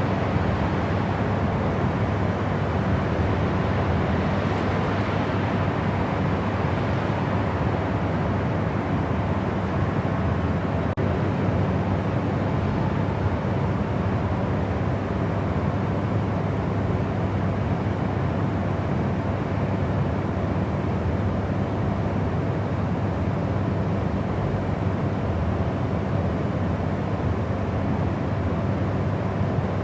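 Steady sleep white noise: an even, unbroken rushing hiss, heavier in the low end than the high.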